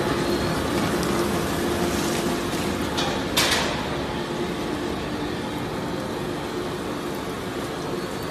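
Industrial waste shredder and its conveyor running steadily with a low hum. There is one sharp, loud crack about three and a half seconds in, as a piece of material is broken.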